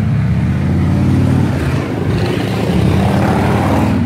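A loud engine running steadily, swelling again near the end before fading away.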